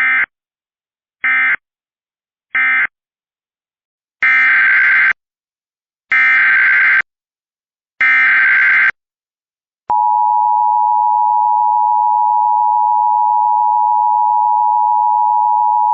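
Emergency Alert System signalling. Three short bursts of buzzy digital data tones end the previous message, then three longer bursts form the SAME header of the next alert. About ten seconds in, the steady two-tone EAS attention signal begins and holds.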